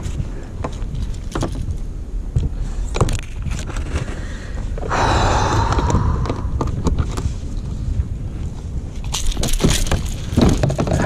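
Low rumble of wind and water around a fishing kayak, with scattered clicks and knocks of gear being handled, a brief rushing noise about five seconds in, and a quicker run of clicks near the end.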